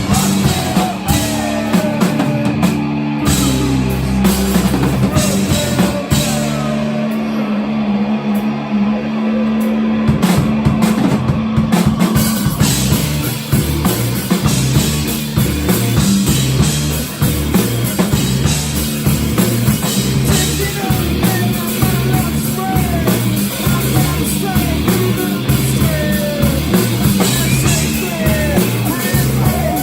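Live rock band playing loud: drum kit, bass and guitar, with heavy stepping bass notes. The cymbals drop out for a few seconds, then the full kit comes back busier about twelve seconds in.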